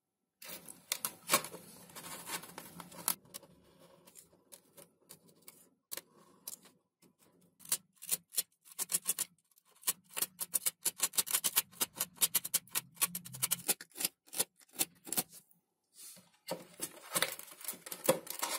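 A plastic retractable landing-gear unit being pressed and shifted in a cutout in a foam wing, and a snap-off utility knife trimming the foam: irregular clicks, taps and scraping, with a quick run of sharp ticks in the middle.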